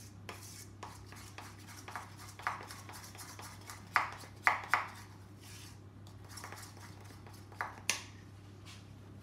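A spoon stirring icing sugar and water into a stiff icing in a small bowl: soft scraping with irregular clinks of the spoon against the bowl, the sharpest a few about four seconds in and one near eight seconds.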